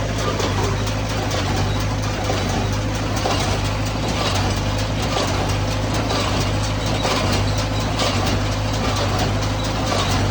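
Tractor engine running at a steady speed, a constant low hum.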